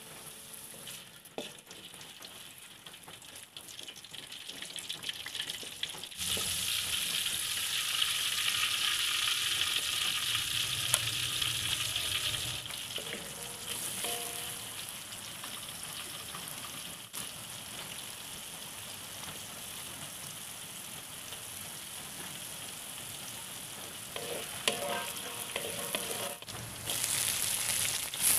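Salted fish and then small green chillies sizzling in hot oil in a wok, stirred and scraped with a spatula. The sizzle grows louder about six seconds in.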